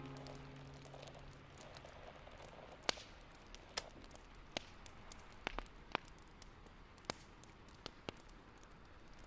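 Faint rain-on-a-rooftop ambience: a soft steady hiss with scattered single drop ticks, a few sharper ones at uneven spacing from about three seconds in. The last held notes of background music die away in the first two seconds.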